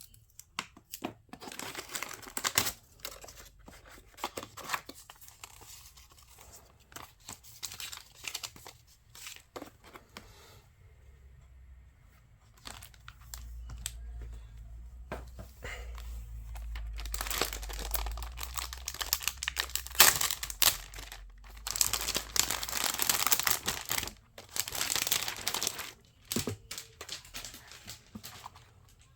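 Packaging being unwrapped and handled: irregular crinkling and tearing rustles with small knocks, loudest in the second half, over a low rumble for several seconds midway.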